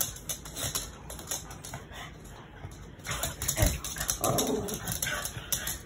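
Two small dogs play-fighting, with a few short vocal sounds from the dogs about three to five seconds in, over quick clicks and scuffles of claws and paws on a laminate floor.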